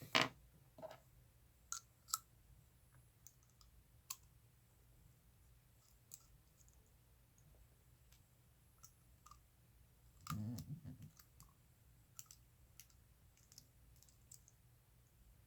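Scattered small clicks and taps of a screwdriver and metal knife parts being handled while a folding knife's handle is taken apart. One duller, louder bump comes about ten seconds in.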